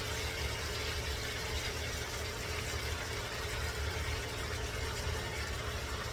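Marinated chicken simmering and sizzling in a pan with its soy-based adobo marinade: a steady hiss over a constant low hum.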